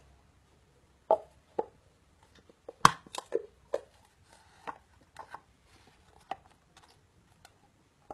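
A series of sharp, irregular knocks and clicks, about fifteen in all, some with a short ringing tail; the loudest comes about three seconds in.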